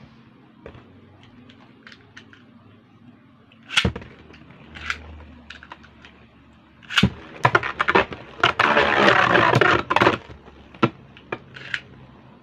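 Metal Beyblade spinning tops clashing and scraping in a plastic stadium. Scattered clicks and a sharp hit about four seconds in, then a dense rattle of rapid collisions and grinding from about seven to ten seconds in.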